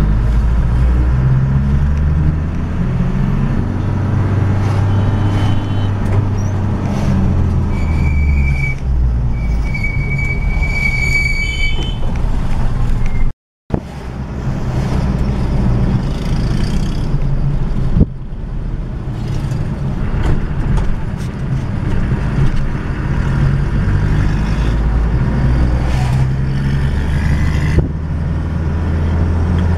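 Engine of a vehicle running as it drives, heard from inside the cab, with road and traffic noise. A high-pitched steady tone sounds twice about a third of the way in, the second time longer. The sound cuts out for a split second near the middle.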